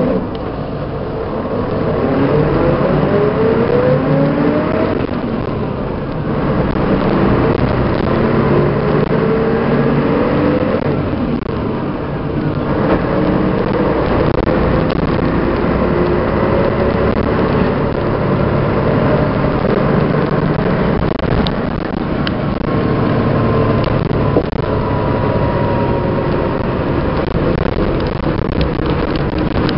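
Diesel engine of a 1988 MAN SL 202 city bus under way. The engine pitch rises several times as the bus accelerates through its gears in the first half, then it runs more steadily at speed, with a faint falling whine near the end.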